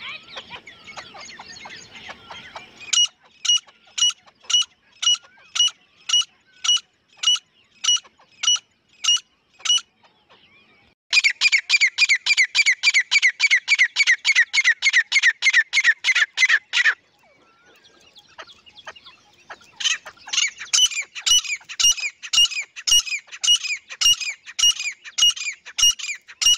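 Grey francolin calling. Soft chatter gives way about three seconds in to a series of sharp, evenly spaced notes, about two a second. After a short pause comes a fast run of about five notes a second, and a little later a second fast run.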